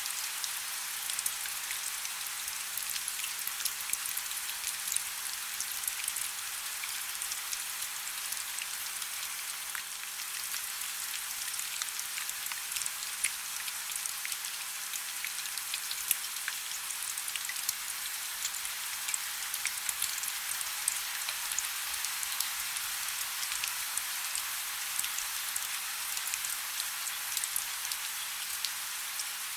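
Heavy rain falling steadily, a dense hiss full of tiny sharp drop impacts.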